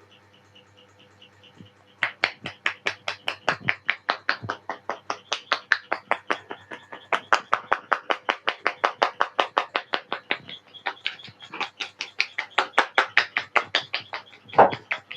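A barber's hands slapping a customer's head in a rapid percussive head massage, about five slaps a second. The strokes start about two seconds in, with a short break near the middle.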